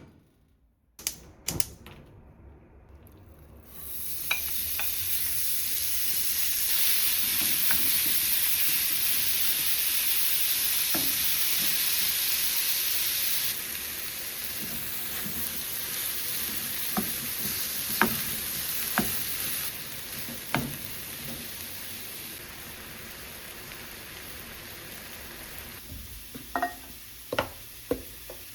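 Food frying in a hot pan: a loud sizzle starts suddenly about four seconds in and settles quieter twice, with scattered clicks of a utensil stirring against the pan.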